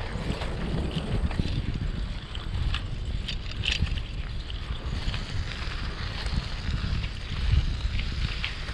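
Wind buffeting a chest-mounted GoPro HERO7 microphone while riding a bicycle, a steady low rumble. Scattered light clicks and rattles sound throughout.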